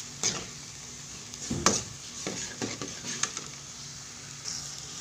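Metal ladle stirring and scraping vegetables in a metal wok, knocking against the pan several times over a soft sizzle.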